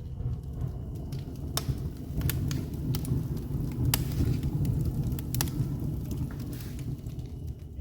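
A fire crackling in a fireplace: sharp, irregular pops over a steady low rumble.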